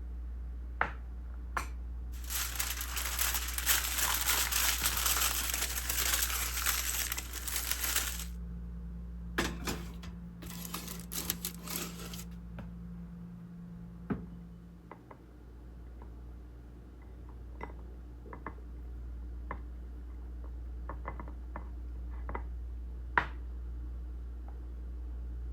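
Kitchen handling sounds: several seconds of crinkling, then shorter rustling bursts and many light clicks and taps of dishes and lids, over a steady low hum.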